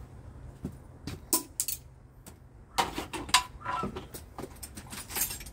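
Metal tools and parts clinking and knocking in short, irregular strikes during hand work on a car's wiper linkage, with a quick cluster of louder clanks about three seconds in.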